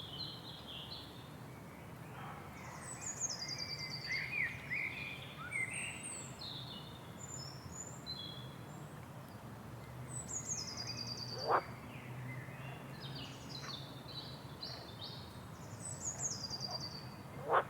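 Several birds singing and calling, including a high falling trill repeated three times, over a steady low rush of waterfall water. A brief sharp sound cuts through twice, once midway and once at the end.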